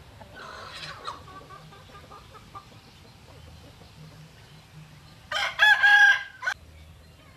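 Rooster crowing once, loud, about five seconds in, with softer chicken clucking and squawks in the first second or so.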